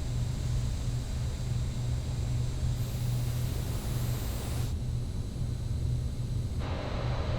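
Dyson Cinetic Big Ball Animal 2 cylinder vacuum cleaner running: a steady low hum under a hiss of suction. The hiss changes abruptly about three seconds in, again at about five seconds, and near the end.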